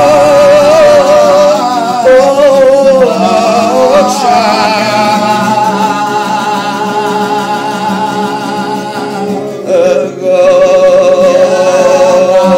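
A man singing a Hungarian song over backing music, holding long notes with a wavering vibrato, with a short break about ten seconds in.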